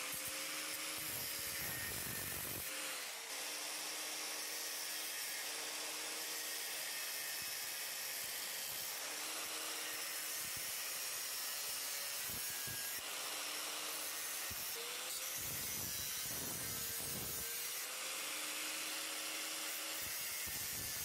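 Angle grinder with a cut-off disc running and cutting through the sheet-steel drive bay cage of a rack-mount server case. The steady grinding noise carries a motor whine that sags and recovers a few times.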